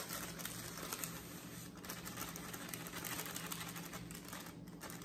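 Plastic bag of dry spice cake mix crinkling softly in the hand as the mix is shaken out into a glass mixing bowl.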